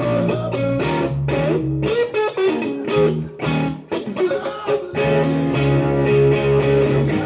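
Live electric guitar and electric bass playing funky blues-rock, the guitar bending notes over held bass notes. The bass drops out for about a second and a half in the middle, then comes back in.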